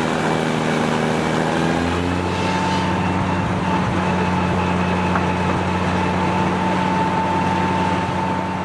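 Case steam traction engine belted to a sawmill, engine and mill running steadily. The sound shifts about two seconds in, and a steady high whine carries on after that.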